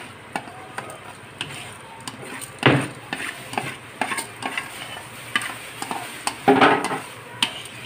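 Metal spoon scraping soaked rice out of an aluminium colander into a cooking pot: a run of small clicks and scrapes of metal on metal, with two louder knocks about three seconds in and again near six and a half seconds.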